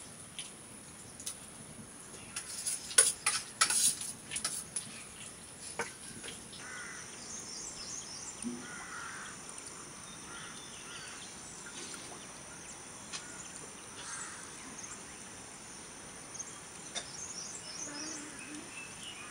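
Metal spoons clinking against metal plates while eating, a handful of sharp clinks in the first six seconds. About six and a half seconds in, this gives way to small birds chirping in short twittering phrases over a steady high-pitched tone.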